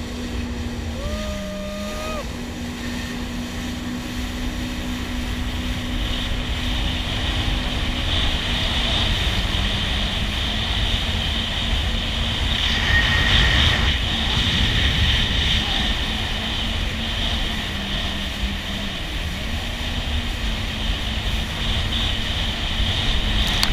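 Jet ski engine running under way, its pitch mostly steady with a few brief dips, over rushing water and wind noise.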